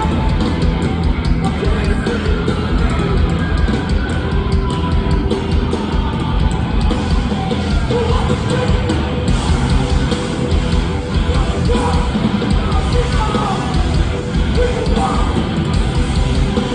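Hardcore punk band playing live: loud, dense music with guitars and drums, unbroken throughout.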